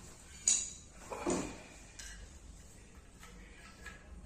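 Knocks and clatter of a wooden bed panel being handled and set against a tiled floor: a sharp knock about half a second in, a duller thud about a second in, then a few light clicks.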